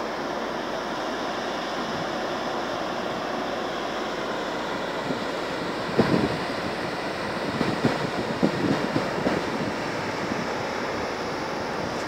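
Steady wind noise on the microphone, with a cluster of short knocks and bumps from about halfway through, lasting three or four seconds.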